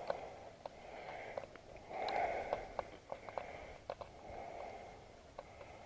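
Faint breathing with scattered small clicks and rustles of handling close to the microphone.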